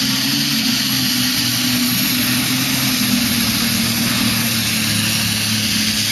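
Pulling tractor's engine running at full power under load as it drags the weight-transfer sled, holding a steady pitch.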